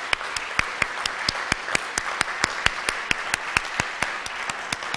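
Audience applauding, with one person's claps close to the microphone standing out sharply and evenly, about four to five a second.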